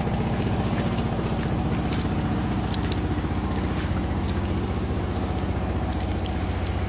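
A small engine running steadily at a low, even pitch, with scattered sharp clicks and crackles over it.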